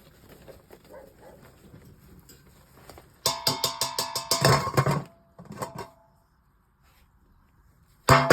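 Loud rhythmic music of strummed or struck pitched notes that starts abruptly about three seconds in. It breaks off around six seconds, leaving near silence, and starts again just at the end.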